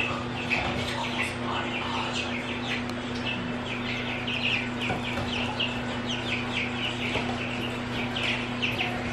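A group of young chicks (pullets) peeping continuously: many short, high, falling peeps, several a second, over a steady low hum.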